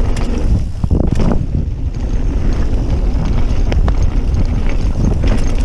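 Wind buffeting the microphone and a mountain bike's tyres rumbling over a dirt trail at speed, with scattered sharp clicks and rattles from the bike as it rides over bumps.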